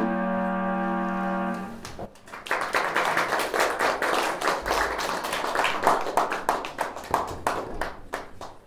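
A held final chord stops about two seconds in, and a small audience breaks into applause, which thins out near the end.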